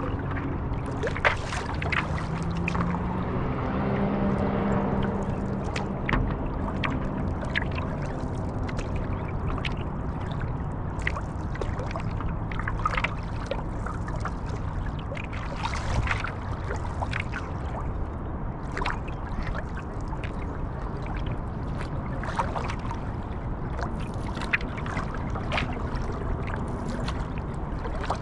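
Paddling a stand-up paddleboard on a river: steady water swishing and lapping, with frequent short sharp splashes and knocks from the paddle strokes. A low droning hum swells and fades in the first several seconds.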